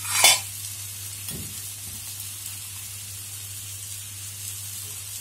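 Onions and tomatoes frying in ghee in a kadai, a steady sizzle, with a short louder burst just after the start.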